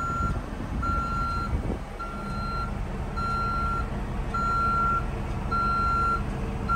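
A backup alarm beeps steadily, about once a second, with each tone held a little over half a second. Under it runs the low, steady idle of a Cummins X15 diesel engine.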